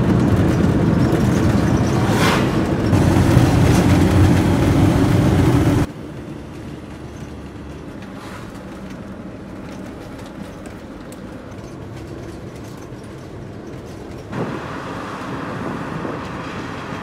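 Steady road and engine noise inside a moving campervan's cab. It drops suddenly about six seconds in and rises a little again near the end.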